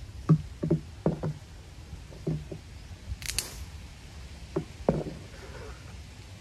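A series of dull knocks, about eight at irregular spacing, with a short hiss a little after three seconds in, over a steady low rumble.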